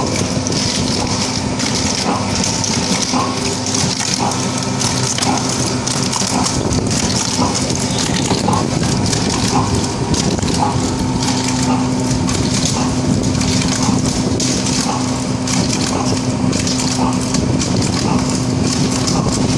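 Small R&D-model blister packing machine running: a steady motor hum under a hiss, with a light click repeating about once a second.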